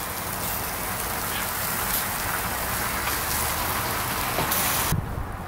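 Marinated pork barbecue skewers sizzling and crackling on a charcoal grill, a dense steady hiss that cuts off suddenly near the end.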